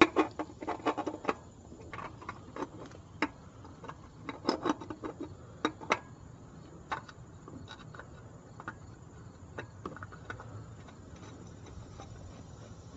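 Scattered light clicks and taps of hands working a new oil filter onto its mount by hand, done by feel under the car. The clicks come thick for the first few seconds, then thin out and nearly stop near the end.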